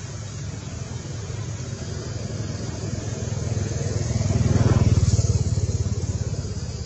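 A motor engine running with a low, pulsing throb, growing louder to a peak a little past halfway and then easing off a little.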